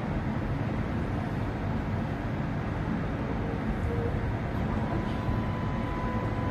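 Steady low rumble of city-street ambience with a tram standing at the stop. A faint steady tone comes in about five seconds in.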